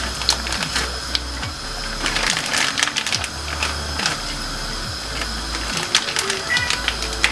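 Frozen snacks frying in hot oil: a steady sizzle with many irregular sharp pops and crackles. Background music with a low bass line runs under it.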